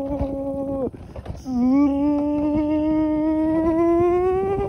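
A rider's voice humming or holding a long "ooh" in two held notes, the second scooping in and slowly rising in pitch, over the low rumble of the coaster sled on its track.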